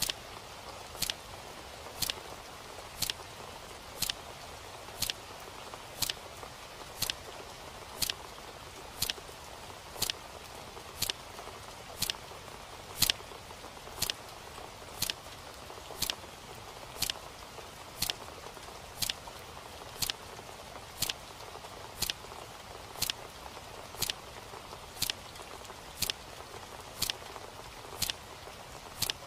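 A clock ticking steadily, one sharp tick a second, over a soft, steady hiss.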